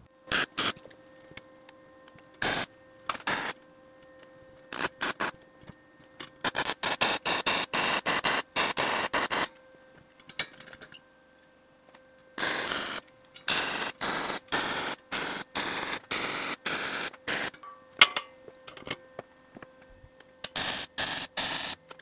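MIG welder tack-welding expanded steel mesh into a steel grill guard frame. The arc crackles in many sudden bursts, from quick single tacks to runs of short welds lasting a few seconds, with a faint steady hum between them.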